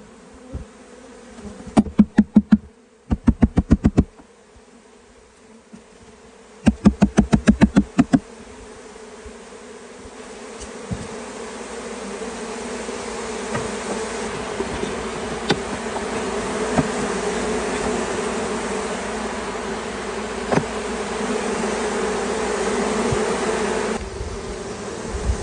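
Honeybee swarm buzzing: a steady hum that builds gradually louder from about eight seconds in. Before that come three short bursts of rapid knocking, several strikes a second.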